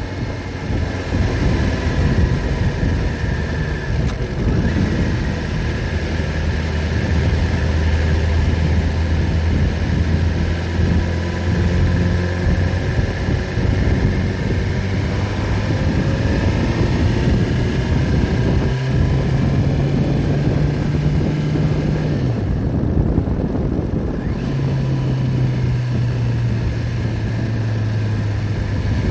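Heavy engine running continuously, its speed stepping up and down several times.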